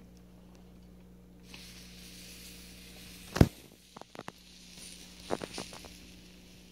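Electric waffle maker's lid brought down over fresh batter, shutting with one sharp clack about halfway through, then a few lighter clicks and rattles. A steady low hum and a faint hiss run underneath.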